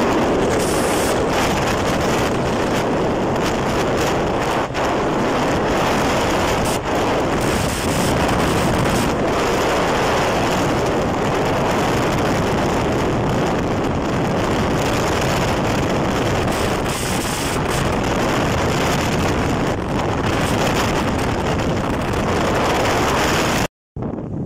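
Loud, steady wind rush over the phone's microphone on a Yamaha YBR125 motorcycle ridden flat out, with the engine's drone under it. The sound cuts out for a moment near the end.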